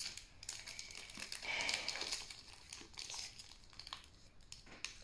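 Foil wrapper of a Pokémon Shining Fates booster pack crinkling as it is pulled and twisted by hand, with a louder stretch near the middle; the wrapper resists being torn open.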